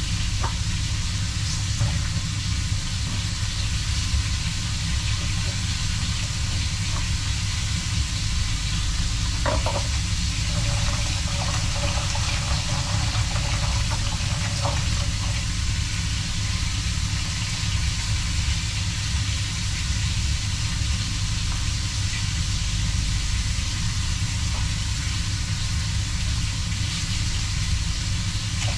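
A steady rushing noise with a low hum underneath, unchanging throughout, with a few faint knocks on top.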